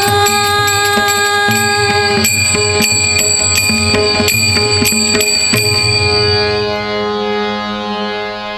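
Bhajan accompaniment without voices: a harmonium holds a chord while small hand cymbals strike on a steady beat, about two strikes a second, with drum strokes underneath. The cymbals stop about six seconds in and the held chord fades.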